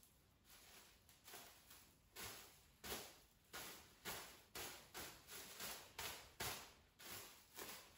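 Clear plastic bag crinkling and swishing as it is handled and rubbed, in a quick series of short, quiet swishes, about two a second.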